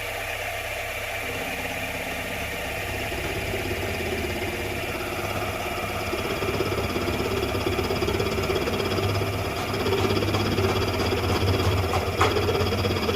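Milling machine running with its cutter milling a flat-bottomed pocket into a metal wheel hub, a steady machine hum with the cutting noise growing louder and rougher from about halfway through. A single short click comes near the end.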